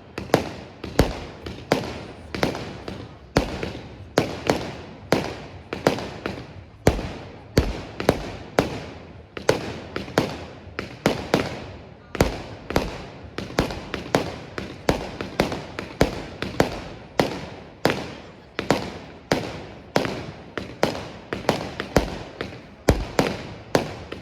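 Fireworks display: shells bursting in quick succession, about two sharp bangs a second, each bang dying away in a short echo.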